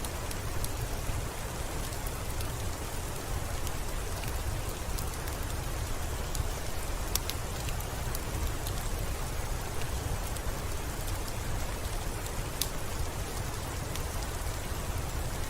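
Steady rain with an even hiss and a low rumble underneath, over which scattered sharp pops and clicks sound at irregular intervals, like a crackling wood fire.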